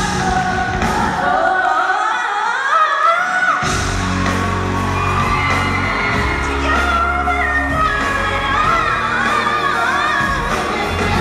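Live pop music recorded from the audience in a large hall: a female singer's lead vocal over the band. The bass drops out about two seconds in, and the full band comes back in just before four seconds.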